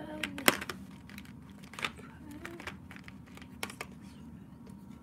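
Scattered small clicks and taps of a paintbrush and painting things handled on a desk, the sharpest about half a second in, with the crinkle of a paper tissue as the watercolour brush is wiped.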